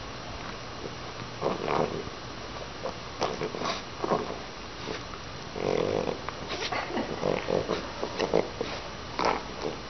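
A French bulldog puppy snorting and grunting in short, irregular bursts as it play-wrestles with a cat.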